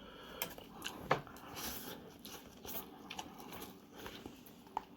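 Quiet eating sounds of a person working through ghost-pepper spicy noodles: soft chewing with scattered small clicks.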